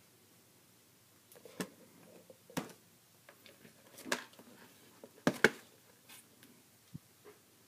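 A handful of sharp clicks and taps, about six spread over several seconds, with a close pair the loudest, and faint rustling between them: small plastic toy parts or packaging being handled.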